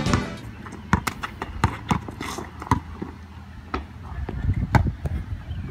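Basketball bouncing on an asphalt driveway: a string of sharp, irregularly spaced slaps, roughly one or two a second.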